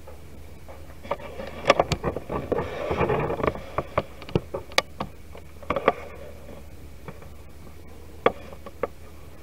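Handling noise as the camera is picked up and repositioned: scattered clicks and knocks with some rustling, busiest about two to three and a half seconds in, over a steady low hum.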